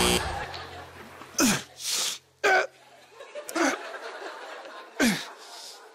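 Live accompaniment music breaks off at the start, leaving a low note fading over a few seconds, while scattered bursts of audience laughter and chuckles follow, several of them short and falling in pitch.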